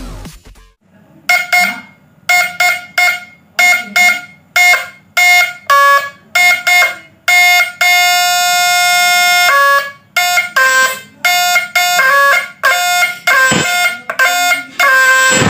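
Homemade fish-stunner inverter buzzing in short, loud bursts, about two a second, as a screwdriver is touched across its output terminals to short and test the output. Near the middle one burst is held for about two seconds.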